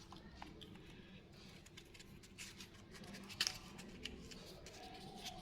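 Candy packaging crinkling and crackling as it is handled and opened, with one sharper snap about three and a half seconds in.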